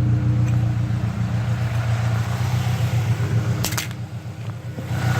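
Saab Aero engine idling with a steady low hum, a sharp click about three and a half seconds in and a brief dip in level near the end. The owner says this engine is still burning oil and mixing oil and coolant after a head gasket replacement.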